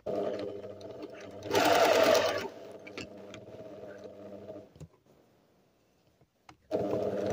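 Sewing machine stitching a seam in thin fabric at stitch length 2, running steadily; it gets louder for about a second around two seconds in, stops just before five seconds in, and starts again about two seconds later.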